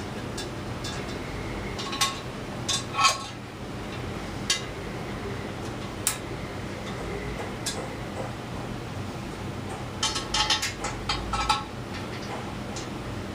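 Metal clinks of steel bolts being handled and started by hand into the intake manifold's bolt holes. The clinks are scattered, with a quick run of them near the end, over a steady low hum.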